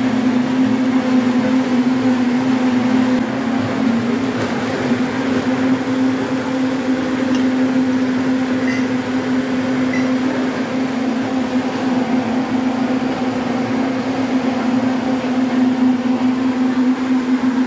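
Electric blender running steadily at a constant pitch, blending fruit for juice.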